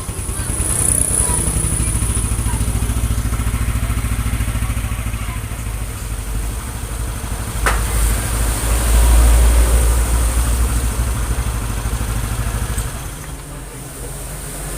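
Yamaha NMAX scooter's single-cylinder engine running, getting louder about eight seconds in with a sharp click just before, and easing off near the end. The camshaft has been replaced to cure a rough, rattly engine noise.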